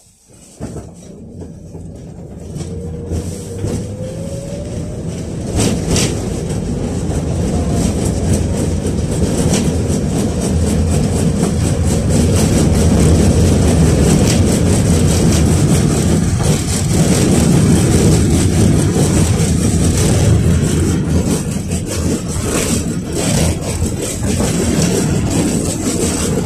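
KTM-5 (71-605A) tram pulling away, heard from inside the passenger cabin. A rising whine from its DK-259 traction motors comes as it gets under way, then the rumble of wheels on rails grows louder and runs steady at speed, with a few sharp knocks.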